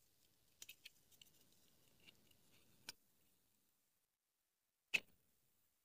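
Faint clicks and taps of a GoPro Hero 10 being pressed into its Ulanzi case mount by hand: two light clicks near the start, one about three seconds in, and a sharper click about five seconds in.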